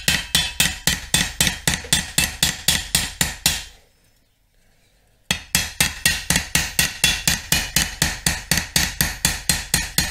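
A ball-peen hammer tapping the edge of a hand-forged sickle blade on a steel peening anvil: quick, even metallic taps about four a second, each ringing briefly. The taps stop for about a second and a half midway, then resume. This is light peening, drawing the steel out to thin the cutting edge for sharpening.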